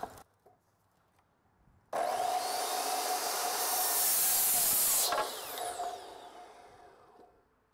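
Corded compound miter saw switching on about two seconds in and cutting through a wooden 2x4. After about three seconds of cutting the blade is released, and its whine falls in pitch and fades as it spins down.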